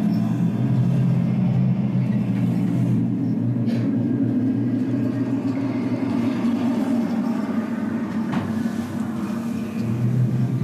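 Steady low hum, its lower tone dropping out briefly near the end, with a couple of faint clicks.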